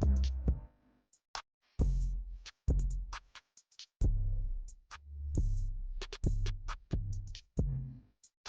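Background music: an electronic beat of heavy bass hits and sharp hi-hat-like clicks, with brief drop-outs between phrases.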